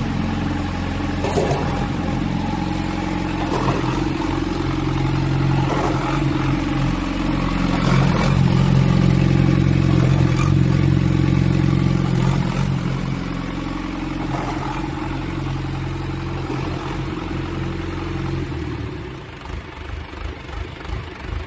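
Diesel engine of a concrete pump running steadily, with a short knock about every two seconds. Near the end the engine is shut off and sputters to a stop.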